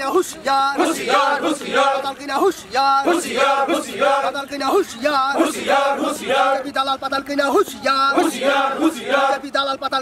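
A group of men chanting slogans in unison, in a steady repeating rhythm.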